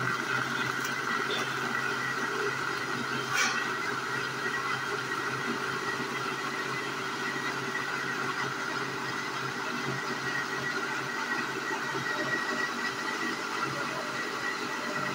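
Philips mixer grinder's motor running steadily at full speed, blending mango pulp, milk and ice into juice in its plastic jar, with a brief tick about three seconds in.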